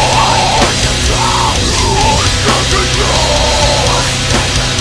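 Studio recording of a metalcore band playing loud and heavy: guitar, bass and drums, with a melodic line that bends up and down over a dense, driving backing.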